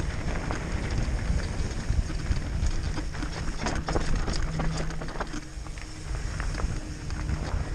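Mountain bike riding fast down a dirt and gravel trail: tyres rolling over loose stones with scattered clicks and knocks from the bike, over a steady low wind rumble on the camera microphone.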